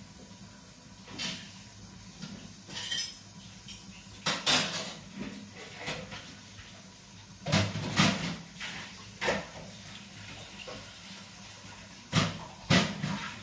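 Dishes, pots and cutlery clattering and knocking against each other as they are washed at a kitchen sink, in irregular sharp clanks every second or so, the loudest about four, eight and twelve seconds in.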